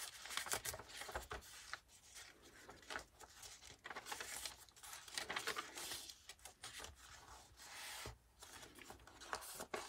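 Paper and card pages of a handmade junk journal being turned and handled, with soft, irregular rustling and crinkling and a few light taps.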